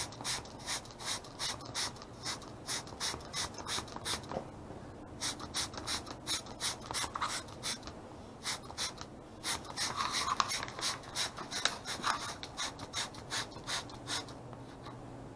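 Hand trigger spray bottle being pumped rapidly and repeatedly, short hissing squirts about two or three a second in runs with a couple of brief pauses, spraying decal application liquid in behind a vinyl decal on the boat hull.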